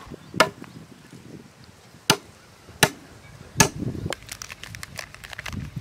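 Sharp knocks of steel dishes: paste is tipped from a steel bowl onto a steel plate. There are four loud knocks in the first four seconds, then a run of lighter, quicker clicks.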